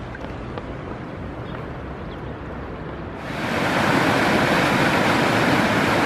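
Rushing river water, a steady wash that grows suddenly much louder and brighter about three seconds in.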